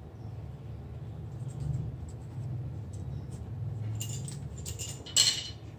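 Small metallic clicks and taps of tools and parts being handled on a camera body: scattered light ticks, a cluster about four seconds in, and a sharper click near the end, over a steady low hum.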